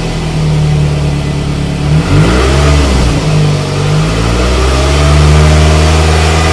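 Scion tC's 2AZ-FE four-cylinder engine revving. Its pitch drops briefly about two seconds in, then climbs and holds higher.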